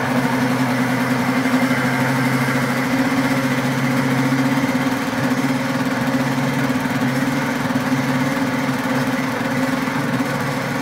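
Pampered Chef Deluxe Cooking Blender's motor running steadily at speed 3 with a low hum, blending pineapple and raspberry into a smooth purée.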